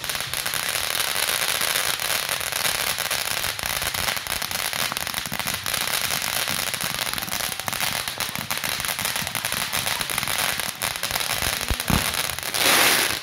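Ground fireworks fountain spraying sparks with dense, continuous crackling. Near the end a louder hissing rush comes as it shoots up a tall jet.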